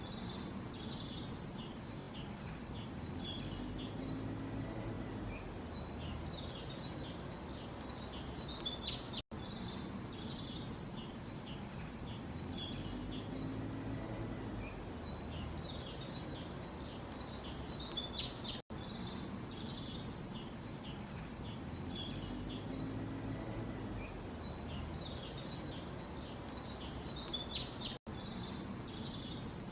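Small birds chirping and twittering in quick repeated phrases over a low background rumble. The same short recording loops about every nine seconds, with a brief dropout at each repeat.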